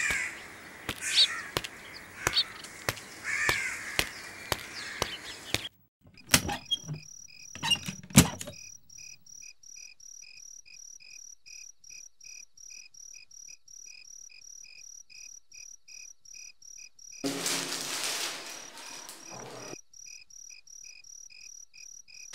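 Crickets chirping in a steady rhythm, about four chirps a second, after a few seconds of outdoor ambience with bird chirps and a few knocks. Near the end a newspaper rustles for a couple of seconds as it is handled.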